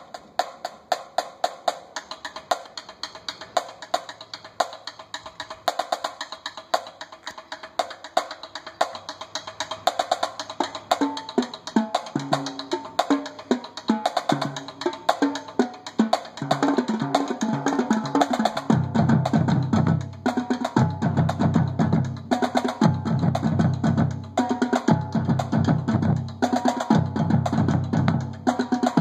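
Marching drumline of snare drum, quad tenors and marching bass drums playing a cadence. It starts light and crisp, lower pitched drum strokes build in after about ten seconds, and from about nineteen seconds in the full line plays loud, with heavy bass drum hits.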